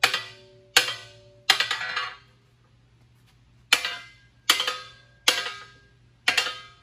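Hammer blows on a steel winch plate, beating a cut and bent section down into place. Each strike is sharp and leaves the plate ringing briefly. There are three strikes a little under a second apart, a pause of about a second and a half, then four more.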